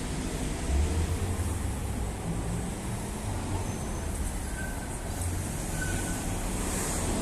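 City street ambience: a steady low rumble of motor traffic, with a passing vehicle growing louder near the end.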